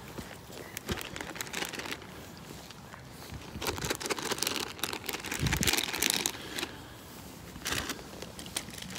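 Crinkling and rustling with many small clicks, loudest in bursts through the middle and once more near the end.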